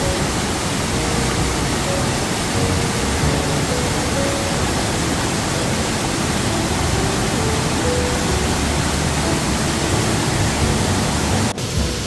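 Gumanpokpo, a 42 m waterfall swollen by heavy rain, pouring into its plunge pool as a steady, loud rushing roar. The roar dips briefly just before the end.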